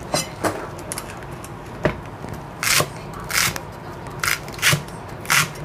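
Kitchen knife chopping a bunch of garlic chives on a wooden chopping block, at an unhurried, uneven pace. About eight cuts, each a short crisp crunch through the stalks ending in a knock of the blade on the board.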